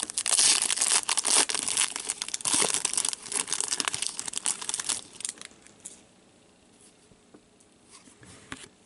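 A foil trading-card pack wrapper being torn open and crinkled: a dense crackling run for about five seconds, then it drops to near quiet with a few small clicks as the cards come out.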